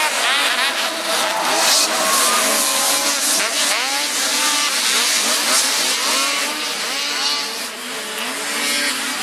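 A full gate of two-stroke snocross race snowmobiles launching off the start line together, many engines revving at once and rising in pitch as they pull away. The sound cuts off suddenly at the very end.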